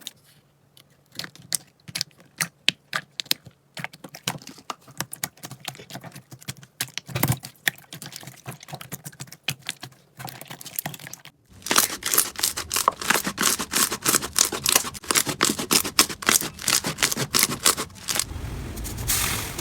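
Slime being squished and pressed by hands, giving sticky clicks and pops that come sparse and irregular at first, then a dense run of crackling clicks from a little past halfway.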